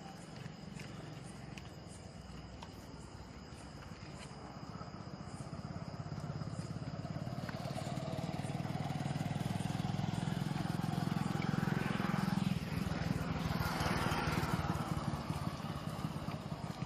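A motorcycle engine running, its low pulsing hum growing steadily louder over several seconds, with a swelling and fading rush of noise a little past midway as it comes closest.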